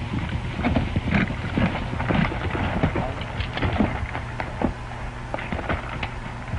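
Hoofbeats of horses galloping, a dense irregular patter of knocks that thins out near the end, over the steady low hum and hiss of an old film soundtrack.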